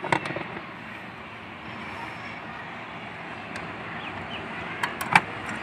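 Sharp clicks of computer parts being handled, a short one at the start and two close together near the end, as a CPU cooler fan is set onto the motherboard. Under them runs a steady background hum of noise.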